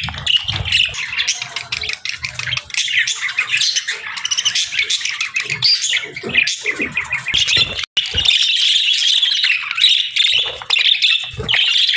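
Pet budgerigars chattering and chirping without a break, with sharper squawks among the warble. Dull low knocks run under the first few seconds, and the sound cuts out for an instant about eight seconds in.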